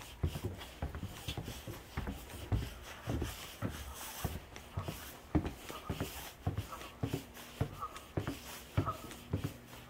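Footsteps on snow-dusted wooden decking: irregular knocks and scuffs, about one or two a second.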